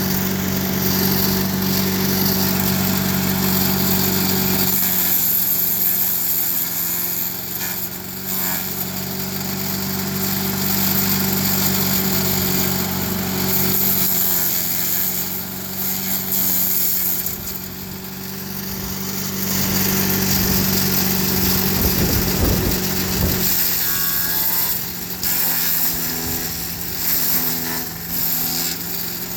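Craftsman 4 HP wood chipper/shredder's small single-cylinder engine running steadily on a replacement carburettor, its note shifting a few times, with an irregular crackle from the machine about two-thirds of the way through.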